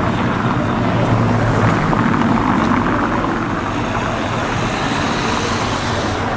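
Car traffic driving past on a city street: a steady rumble of engines and tyres that eases off slightly toward the end.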